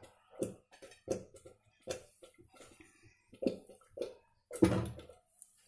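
Short, scattered knocks and clicks of a lidded steel kadai and its glass lid being handled as the pan is lifted off a gas stove and set down, the loudest knock coming about three-quarters of the way through.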